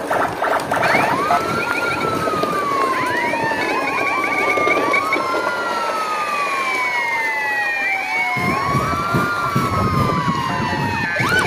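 Police-style siren wailing in slow rising and falling sweeps, several of them overlapping. Underneath runs a rough rustling noise that grows heavier about eight seconds in.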